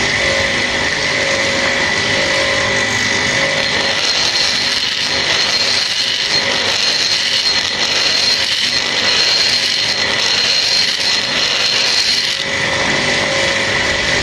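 Rotary die grinder running with a steady high whine, its burr grinding out the port of an aluminium motorcycle cylinder head. The rasping of the cut is strongest in the middle stretch and eases near the end.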